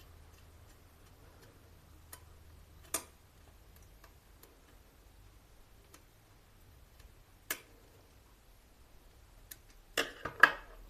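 Sparse sharp clicks and taps from hands working on a plastic switch-and-socket wiring board with wire and screwdriver: single clicks about three seconds in and again past the middle, then a quick cluster of three or four louder clicks near the end.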